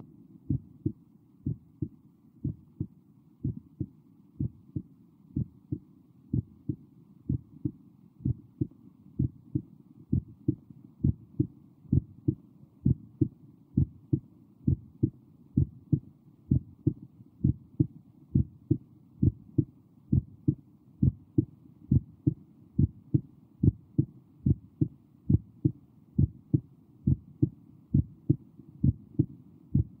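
Recording of a normal human heartbeat: a steady lub-dub, the first and second heart sounds coming in pairs a little over once a second, low and dull.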